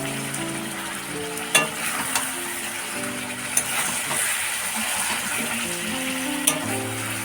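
Chicken pieces sizzling in hot oil in a cooking pot as they are stirred, with a spoon knocking sharply against the pot four times.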